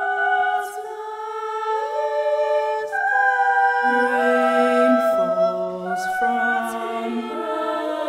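An a cappella choir singing long held chords that shift from one to the next every second or so, with lower voices coming in about four seconds in.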